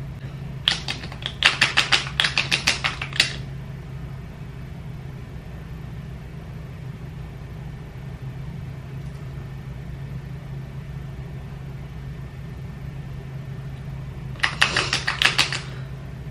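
Two bursts of rapid light clicking, roughly six to eight clicks a second: one of about two and a half seconds near the start and a shorter one near the end, over a steady low hum.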